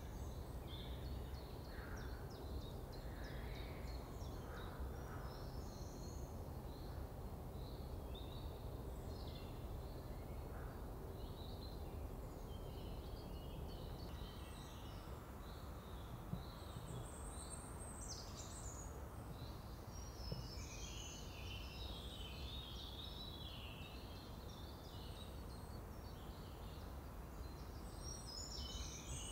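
Woodland birds in morning chorus, several chirping and warbling in short, scattered phrases that grow busier in the second half, over a steady low background rumble.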